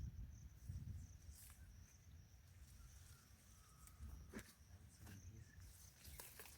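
Faint outdoor ambience with a steady high-pitched insect drone. There is a low rumble near the start and a few sharp clicks about four and six seconds in.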